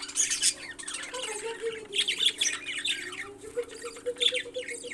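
Parrots squawking: many short, harsh calls in quick succession, over a steady low hum.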